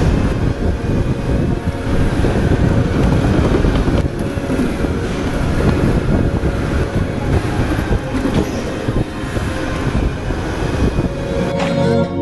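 Electric go-kart running at speed, heard on board: a loud, steady rumble of tyres and chassis on the track with a faint electric-motor whine that rises and falls with speed.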